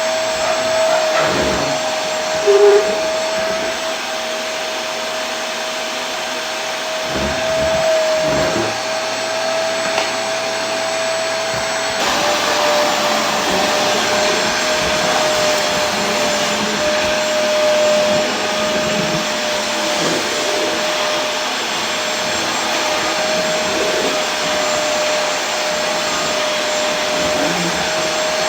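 Vacuum cleaner running steadily, a continuous rushing whoosh with a constant whine-like hum. A brief louder tone blips about three seconds in.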